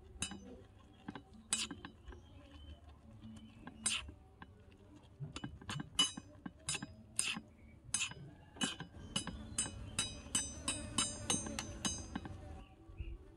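A small metal spoon clinks and scrapes against a miniature metal wok as stir-fried food is tossed. The clinks are scattered at first, then come quicker from about halfway. From about nine seconds in there is a run of ringing taps, about four a second, which stops shortly before the end.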